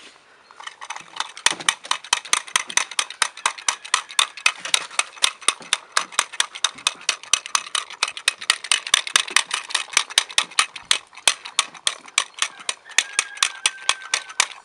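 Czechoslovakian wolfdog puppies eating together from a food bowl, chewing and clicking against the bowl in a rapid, continuous run of sharp clicks, several a second.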